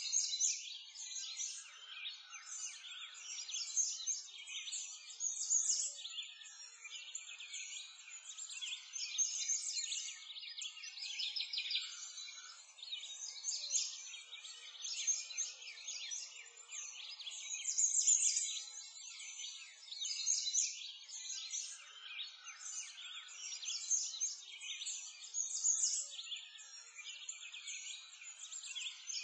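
A continuous dense chorus of many small songbirds chirping and trilling, high-pitched with no low sounds underneath.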